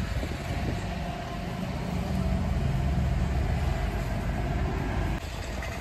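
Steady low rumble of a car's engine and road noise heard from inside the cabin, dipping for a moment near the end.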